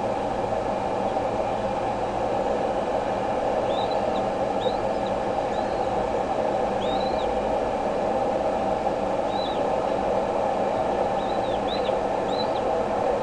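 Bald eagle chicks giving short, high, thin chirps now and then while being fed, several in quick succession near the end, over a steady rushing background noise.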